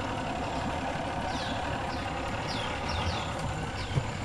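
Fishing boat's 200-horsepower outboard motor running steadily as the boat moves along the river. A bird calls over it with several short falling whistles, and there is one brief knock near the end.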